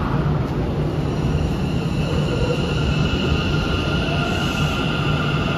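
Hanshin 1000 series electric train starting to pull out of an underground station: a steady low rumble with the electric traction motors' whine growing stronger about halfway through as it gathers speed.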